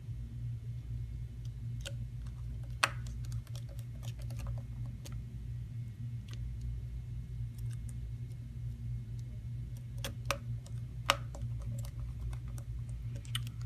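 Light scattered clicks and taps of fingers and small parts on an iPod Touch's metal shield and frame as it is put back together, with a few sharper clicks, over a steady low hum.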